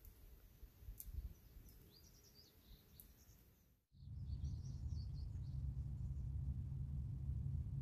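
Small birds chirping faintly in the open, with a few sharp clicks in the first half. After a sudden change about four seconds in, a low steady rumble lies under the chirps.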